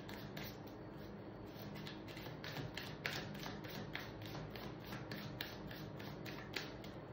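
Tarot cards being shuffled and handled, a run of soft, irregular taps and flicks, over a faint steady low hum.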